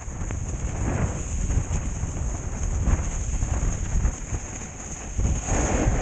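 Snowboard riding through deep powder, snow spraying over the camera, with wind buffeting the microphone in a low rumble. The hiss of the snow swells a few times, about a second, three seconds and five and a half seconds in.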